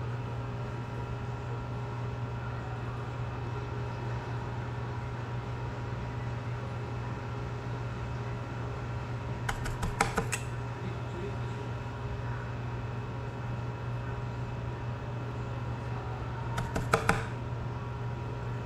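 Steady electrical hum with a low drone. Two short clusters of light clicks and clinks, about ten seconds in and again near the end, as a soldering iron and tweezers are handled.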